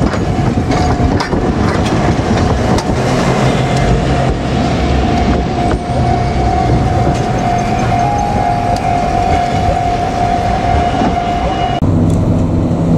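Heavy vehicles passing on a busy street: a loud steady rumble with a high steady whine over it. The sound changes abruptly near the end.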